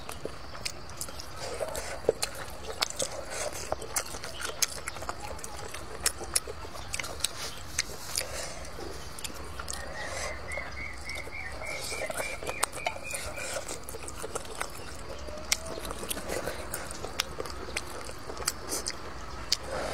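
Wooden chopsticks clicking and scraping against a metal brass bowl as dry-mixed noodles are stirred and lifted, giving many short, sharp ticks. A short rising series of chirps sounds faintly in the background about halfway through.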